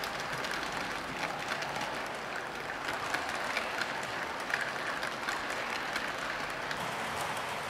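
HO-scale model passenger coaches rolling along the track: a steady rattle of small metal wheels on rail, with many small irregular clicks.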